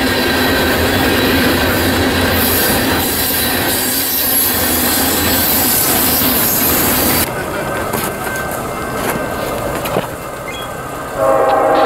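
Freight train of tank cars rolling past, a steady rumble of wheels on rail with a high squeal over it. The rolling stops abruptly about seven seconds in, and near the end a diesel locomotive's multi-tone horn starts to sound from an approaching Norfolk Southern freight.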